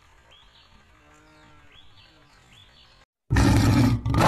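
Faint, low-level background for about three seconds, a moment of dead silence, then a sudden loud animal roar near the end.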